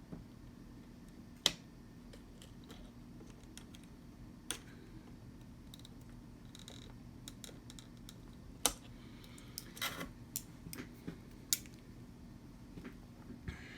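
Small hand tools and wire connectors clicking and tapping during close wiring work: scattered sharp clicks a few seconds apart, with a few quicker ones near the end, over a faint steady low hum.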